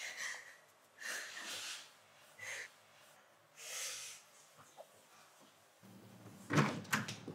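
A woman crying in soft, breathy sobs, four gasping breaths spaced through the first few seconds. Near the end come a few sharp clicks and thuds from a door.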